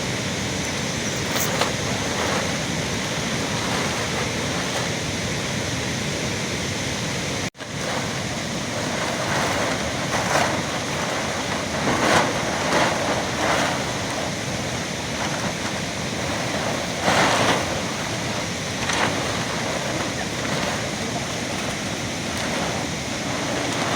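Steady rush of a rainstorm, heavy rain with wind, with a few short louder swells in the second half. The sound breaks off for an instant about seven and a half seconds in.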